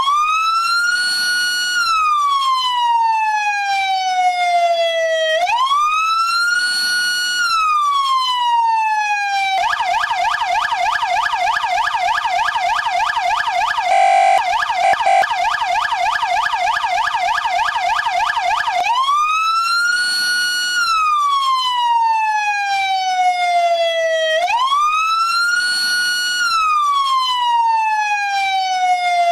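Mastercom B police siren. It sounds a wail that rises quickly, holds briefly and then slides slowly down, repeating about every five seconds. About a third of the way in it switches to a fast yelp for roughly ten seconds, with two short steady blasts near the middle, then returns to the wail.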